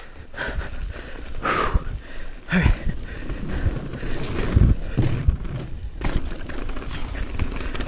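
Mountain bike riding fast down a dirt trail: tyres rolling over dirt and rock, with the bike knocking and rattling sharply over bumps several times, and wind rushing over the microphone.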